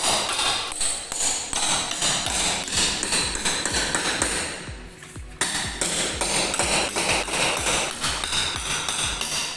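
Fast, even run of sharp metallic-sounding strikes, about five a second, with a short lull about five seconds in.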